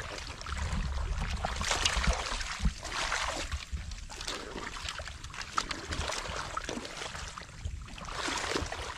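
Hands sloshing and splashing through shallow muddy water, groping in the mud for fish, in irregular bursts.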